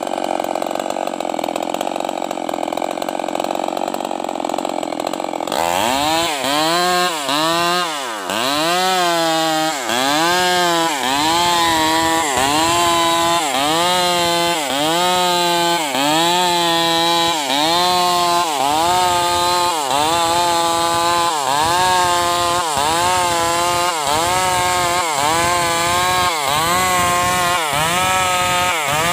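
VTS MS 381 two-stroke chainsaw at full throttle, ripping an acacia log lengthwise along the grain. For the first five seconds or so the engine holds a steady high pitch. After that its pitch dips and climbs back about once a second under the changing load of the cut.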